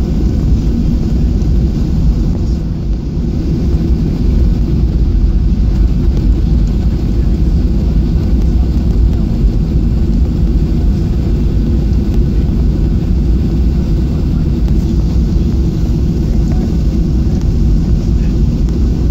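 Jet airliner cabin noise while taxiing: a steady low rumble from the engines, rising slightly about four seconds in.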